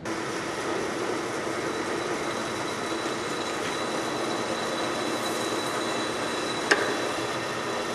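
Drill press running steadily with a faint high whine, its 1/4-inch bit cutting a pilot hole through a steel plate. A single sharp click sounds near the end.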